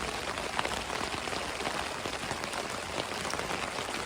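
Rain falling on a tarp shelter, heard from underneath: a steady dense hiss with many individual drops ticking on the fabric.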